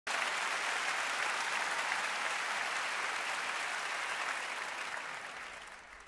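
Studio audience applauding, fading away over the last second.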